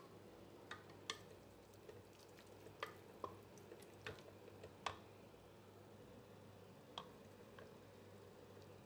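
Wooden spoon stirring a thick masala in a pot: faint, irregular clicks and taps of the spoon against the pot, about eight in all, over a low steady hum.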